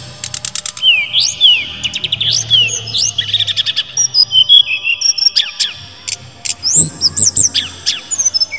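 A brown-chested jungle flycatcher singing continuously: clear high whistles that slide up and down in pitch, mixed with rapid trills and held notes.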